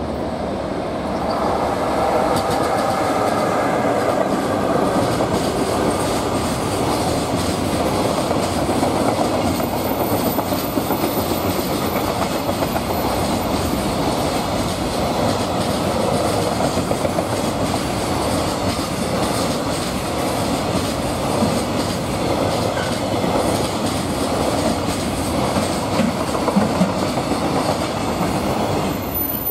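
EF66 electric locomotive hauling a long container freight train past at close range: a steady, loud rumble of wagons with the clickety-clack of wheels over rail joints, easing off near the end as the last wagon passes.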